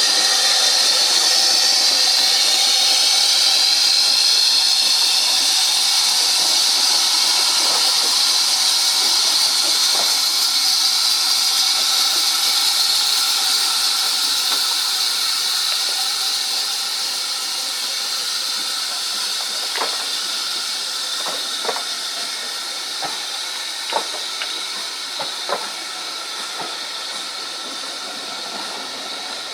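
Steam hissing steadily from the GWR Large Prairie 2-6-2 tank steam locomotive, slowly dying away, with a few sharp clicks in the later part.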